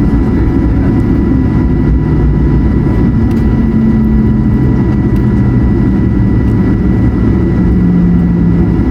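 Cabin noise of an Airbus A220-100 taxiing, its Pratt & Whitney PW1500G geared turbofans running at low power: a steady loud rumble with a thin steady whine above it.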